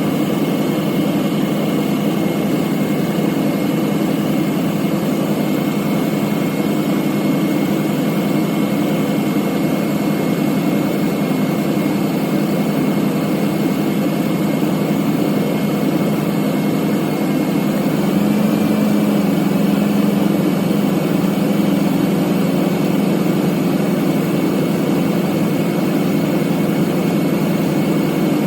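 2000 Ford F-250's engine idling steadily with the A/C compressor running while refrigerant is being added. A thin steady high whine sits over the low engine hum, and the sound grows slightly louder about 18 seconds in.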